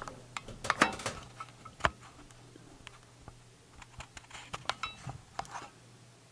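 Irregular light clicks and metallic taps as wires and a tool are handled in the metal electrical box of a burner motor. The sharpest taps come in the first two seconds, with a quicker run of small clicks about four to five seconds in.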